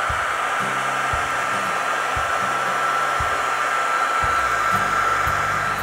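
Hair dryer running steadily, a high motor whine over the rush of blown air.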